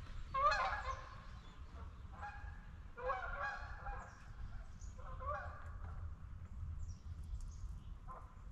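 A flock of wild geese honking in repeated bursts of overlapping calls, the loudest about half a second in.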